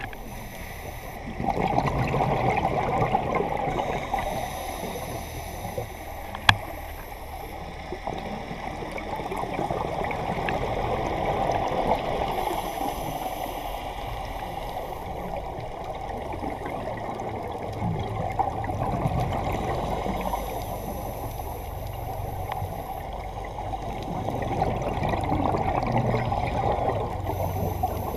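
Scuba breathing heard underwater: exhaled bubbles rumbling and gurgling in bursts of a few seconds, recurring several times, with quieter stretches between. A single sharp click sounds about six and a half seconds in.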